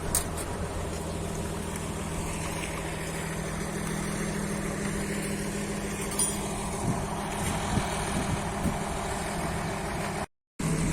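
An engine running steadily at idle, a low even hum. The sound cuts out briefly near the end.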